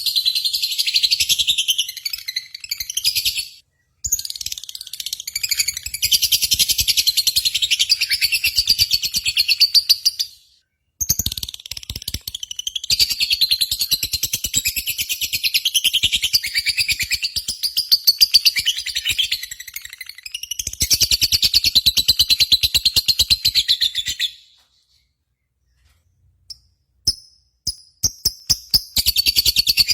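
A small bird singing long runs of fast, high chattering, each run several seconds long. There are brief breaks about four and eleven seconds in, and a longer pause near the end before it starts again.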